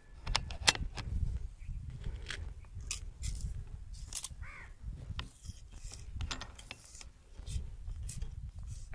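Clicks and clacks of an AF500 PCP air rifle being handled between shots as its action is cocked and a pellet loaded, the sharpest click about a second in, over a low rumble.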